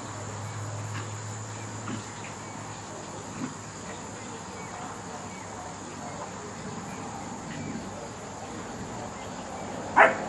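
Outdoor background with insects chirring steadily, a low hum dying away about two seconds in, and one short, sharp, loud sound near the end.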